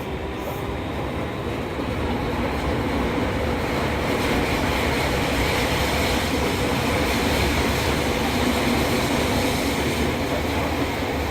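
Fukuoka City Subway 2000-series train, renewed with a Hitachi hybrid SiC VVVF inverter and WN drive, running through the subway tunnel. A steady rush of motor, wheel and tunnel noise grows louder over the first four seconds and then holds.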